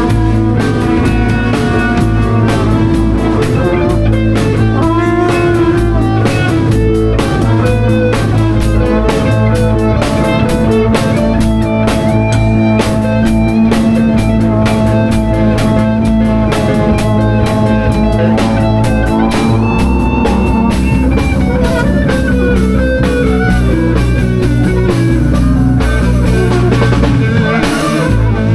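Band music with guitar, bass and a drum kit playing a loose rock groove; held guitar notes give way to a descending run of notes about two-thirds of the way through.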